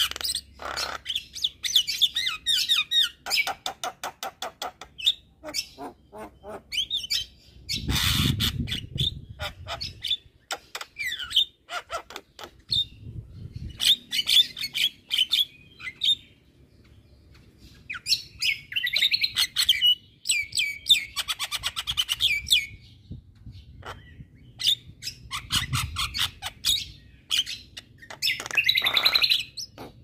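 Javan myna singing its chattering song: runs of rapid clicks and whistled notes broken by harsh, squawking calls, the loudest about eight seconds in and near the end, with a short pause about halfway.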